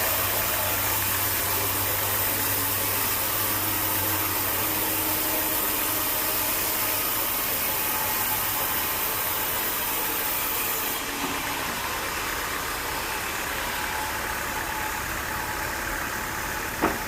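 Sawmill machinery running steadily, with a loud hiss that drops away about eleven seconds in. A single sharp knock comes near the end.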